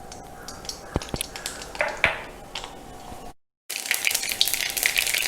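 Mustard seeds in hot sesame oil: a couple of light knocks about a second in, then, after a brief break, dense rapid crackling and popping as the seeds splutter in the oil.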